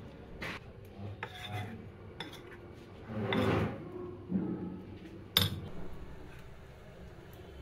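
Metal spoon stirring and scraping thick banana fritter batter in a ceramic bowl, with scattered clinks of the spoon against the bowl and a longer scraping stir a little past halfway. A single sharp clink about five seconds in is the loudest sound.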